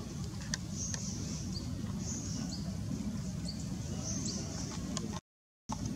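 Outdoor ambience: a steady low rumble with short, high chirps and faint buzzes recurring about once a second. The sound cuts out completely for about half a second near the end.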